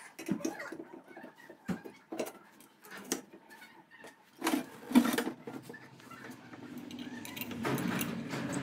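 Metal clicks, knocks and clinks as a brake caliper is handled and fitted over the steel brake disc of a buggy chain drive spool, with the loudest knocks about halfway through. A low steady noise builds in the second half.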